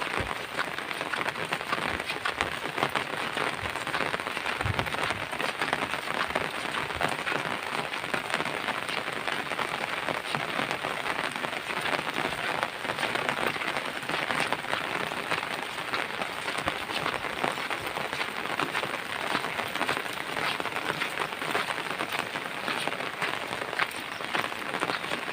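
Steady rain falling on the ground and nearby surfaces, a constant hiss with many distinct drop hits.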